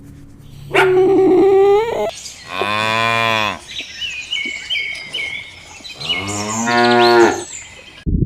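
Cattle mooing: three long calls, the first higher-pitched than the other two, with fainter high chirping between the second and third.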